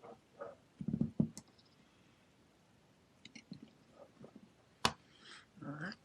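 A scatter of small clicks and taps from handling soldering tools and bullet connectors on a workbench, with a cluster of knocks about a second in and one sharp click near the end.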